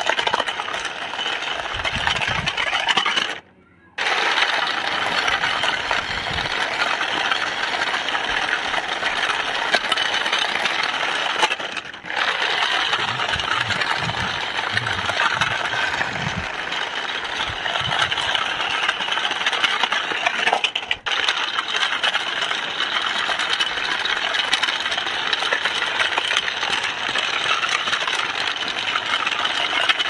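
Small toy RC cement mixer truck driving over rough, gritty concrete: its plastic wheels and battery drive motor make a steady rattling, crunching whir. The sound drops out briefly about three and a half seconds in.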